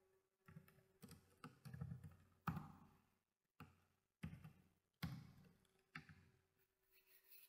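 Faint single keystrokes on a computer keyboard, about a dozen taps spaced roughly half a second to a second apart, typing slowly into a text editor.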